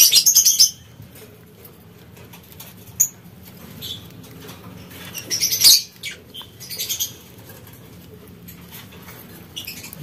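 Lovebirds chirping and squeaking in short, high, rapid bursts: one at the start, a louder one about five and a half seconds in, and a briefer one near seven seconds.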